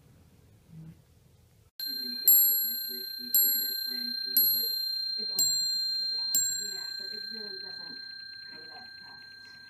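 Antique French clock striking on its bell: the hammer hits the bell five times, about once a second, each strike ringing on with a clear tone that slowly dies away.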